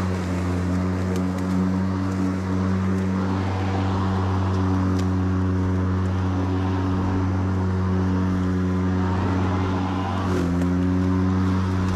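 EGO 56V Select Cut cordless mower running under load, its brushless motor and blades giving a steady, even hum that shifts slightly in pitch about ten seconds in.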